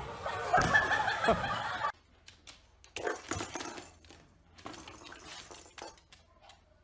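A loud crash and clatter as a gymnast slams into the uneven bars and falls, cutting off abruptly about two seconds in. Scattered quieter knocks and clicks follow.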